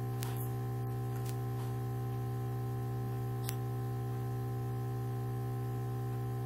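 Steady electrical hum, low and buzzy with many steady overtones, on the recording. A few faint clicks come in the first couple of seconds and once more about three and a half seconds in.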